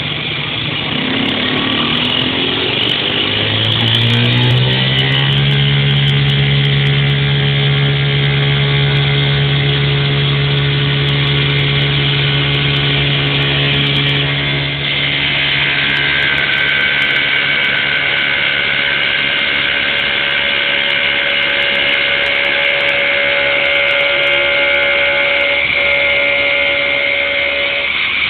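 CNC wood lathe running: its motor whine rises in pitch over the first few seconds as the spindle spins up, then holds steady over a hissing noise. About halfway through, the tone changes as higher whines come in.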